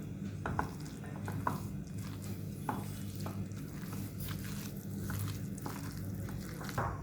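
A thick mash of boiled potato and ground sweet corn being mixed in a bowl: soft, irregular squishing with short clicks and taps every half second or so.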